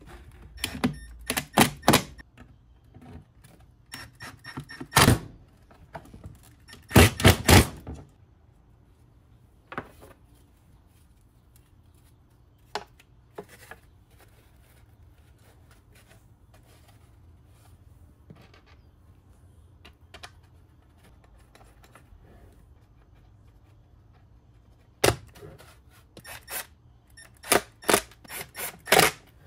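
Hard plastic car speaker pod, speaker and grille cover being handled and set down on a workbench: sharp clicks and knocks in short clusters, a long quiet stretch with a few lone ticks, then a dense run of knocks in the last few seconds.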